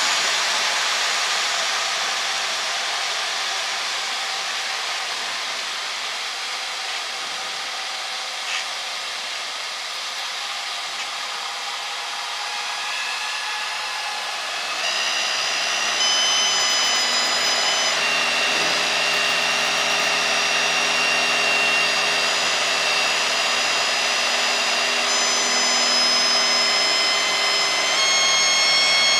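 Cabin noise of a single-engine Cessna trainer flying a power-on stall: steady engine and airflow noise that eases as the plane slows. About halfway through, full power comes in and the engine gets louder, with steady whining tones that step up in pitch a few times.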